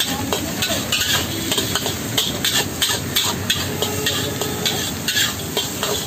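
Metal ladle scraping and clanking irregularly against a wok as fried rice is stir-fried, over a steady sizzling hiss from the hot pan.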